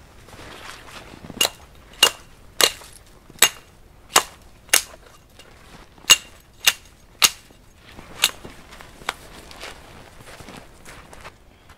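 Hatchet chopping into a felled spruce pole, about eleven sharp, cracking blows at irregular intervals, most likely limbing the branches off it.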